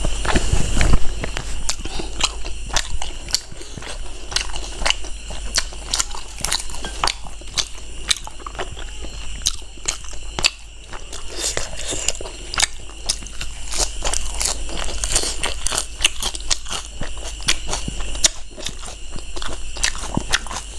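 Close-miked chewing and wet mouth sounds of someone eating pork rib curry and rice by hand, with many quick, irregular smacks and clicks. There is a louder bump about a second in.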